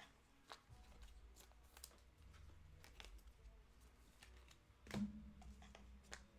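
Faint, scattered clicks and light taps of trading cards and packs being handled on a table, with one louder click about five seconds in.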